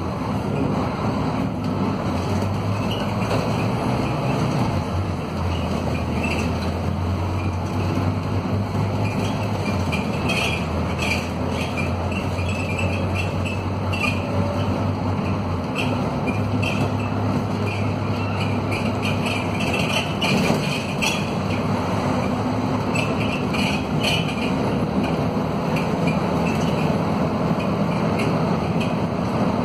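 Scania DC9 230 hp five-cylinder diesel of a K230UB city bus pulling under load uphill, heard from inside the cabin: a steady low engine drone whose pitch steps down and back up a few times, over road noise. Light rattles come from the worn bus body through the middle stretch.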